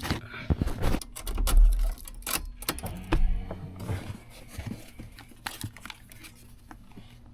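Clicks, taps and rustling of hands working among the wiring behind a car's dash while hooking up an OBD2 scanner, with a couple of dull knocks and a low steady hum underneath. The handling thins out near the end.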